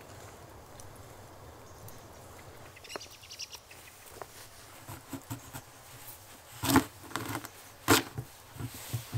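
Quiet at first, then a large knife cutting through a hard raw quince on a wooden cutting board: sharp crunching cracks as the blade splits the fruit and knocks on the board, the two loudest about a second apart, followed by quicker light knocks.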